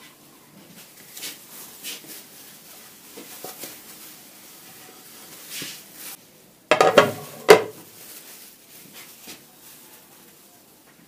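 Ceramic plates being handled and set down on a stone countertop: a few light clinks, then a loud clatter with a sharp ringing clink about seven seconds in.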